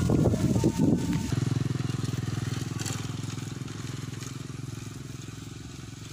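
A motorcycle engine running steadily and slowly fading away, after a louder, jumbled stretch in the first second or so.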